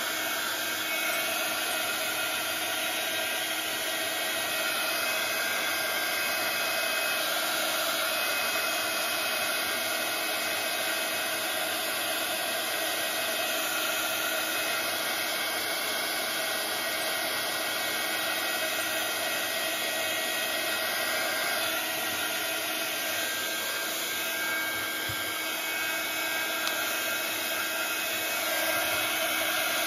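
Handheld craft heat gun running continuously: a steady blowing hiss with a constant whine from its fan, drying wet collage medium on paper.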